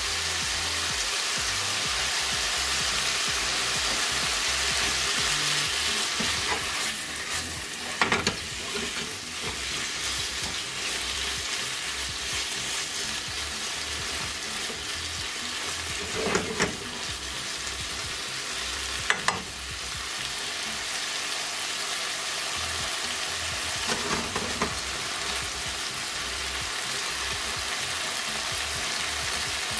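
Chicken strips and prawns sizzling steadily in a wok, with a spatula scraping and clattering against the pan a few times as they are stirred.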